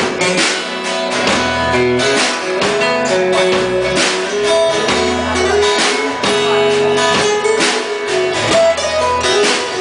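Instrumental break of a country-rock song: guitar playing over a steady beat.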